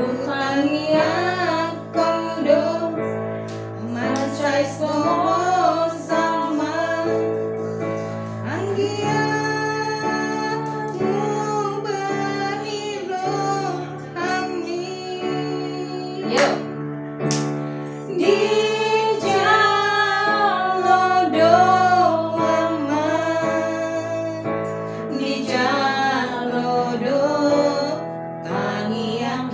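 A woman singing a song over held chords played on a digital piano.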